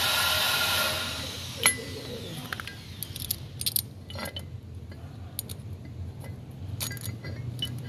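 A steady machine noise dies away in the first second with a falling whine. Then metal parts of a disassembled hydraulic piston pump clink: one sharp clink about a second and a half in, followed by several lighter metal taps and clicks as parts are handled inside the pump housing.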